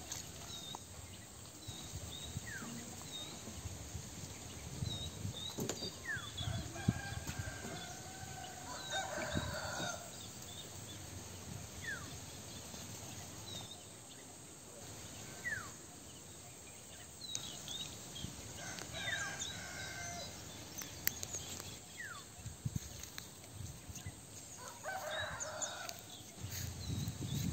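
A rooster crowing three times, each crow drawn out for about two seconds, with small birds chirping.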